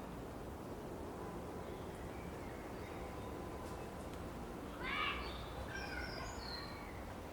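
Outdoor ambience: a steady low background rumble, with a loud bird call about five seconds in, followed by a few higher chirps.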